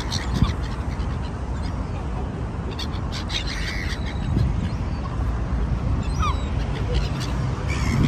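Gulls calling in short, scattered cries over a steady low background rumble.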